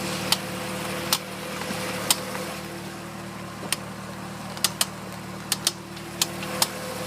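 Corvette wheel making sharp popping clicks while turning sharply, about ten irregular pops over several seconds, with the engine idling steadily beneath.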